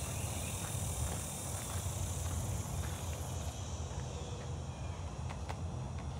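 Insects buzzing in a high, even drone that fades out about halfway through, over a steady low rumble, with a few faint clicks.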